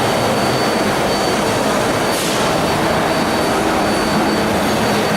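Steady din of running machine tools, with a thin high whine throughout and a brief hiss about two seconds in.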